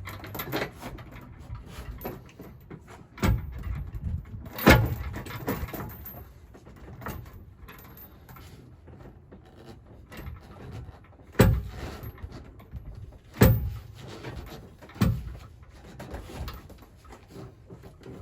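A handful of heavy knocks and clunks at irregular intervals, the loudest about five seconds in, from the steel Reese Goosebox pin box being shifted and lined up against the trailer's pin box mounting.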